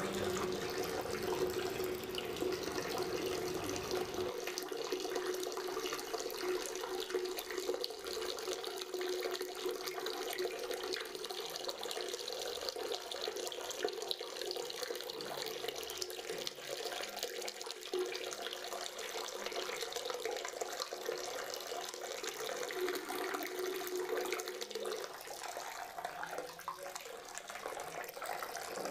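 Water running in a steady, unbroken stream, like a tap left on, with a faint steady hum beneath it.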